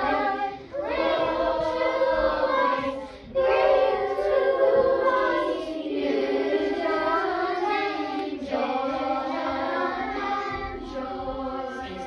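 A class of children singing a Michaelmas song together as a choir, in phrases with short breaks between them.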